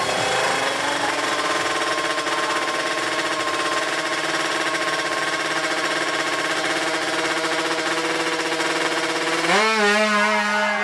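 Tuned two-stroke Kawasaki Ninja 155cc drag-bike engine settling from a rev to a steady, buzzing idle, then revved up sharply near the end.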